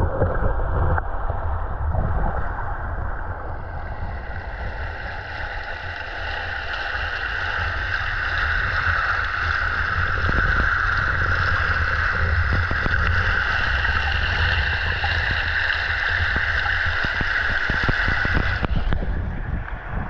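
Waterfall plunging into its pool, heard from under the water: a muffled low rumble of churning water with a steady hiss above it that swells a few seconds in. The sound is dulled because the microphone is submerged.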